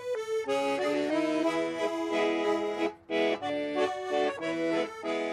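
Accordion music: a tune of held notes and chords that change every fraction of a second, with a short break about three seconds in.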